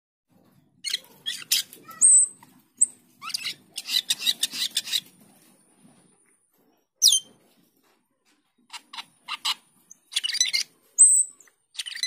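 Asian glossy starling (cucak keling) singing: clusters of harsh chattering notes mixed with short high whistles and one sharp falling whistle, with a pause of about a second and a half in the middle.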